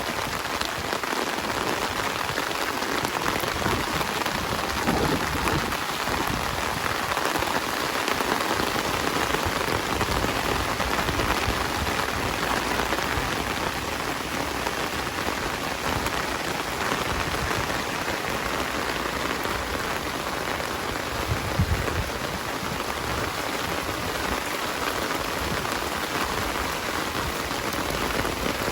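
Heavy rain falling steadily on surfaces, a dense even hiss, with one brief low thump about three-quarters of the way through.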